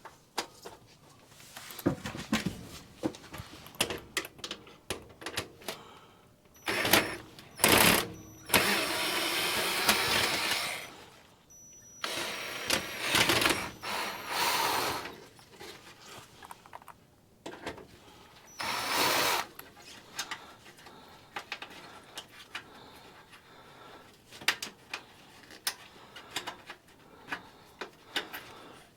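Sheet-metal stovepipe being worked loose by hand: scattered knocks and clanks, with several louder rasping bursts of one to three seconds, the longest about nine to eleven seconds in.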